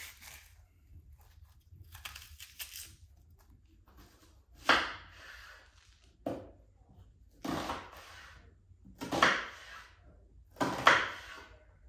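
About five separate knocks during food preparation, each with a short rustling or scraping tail, spaced a second or two apart.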